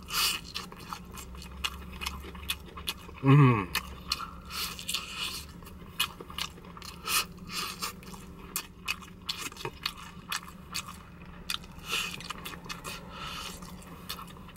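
Fried chicken being bitten and chewed close to the microphone: many short, sharp crunches of the crispy skin, with a brief "mmm" about three seconds in.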